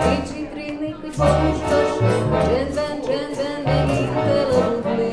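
Instrumental passage of a song played by an acoustic band: accordion carrying the melody over plucked double bass notes, strummed acoustic guitar and a hand drum keeping the beat.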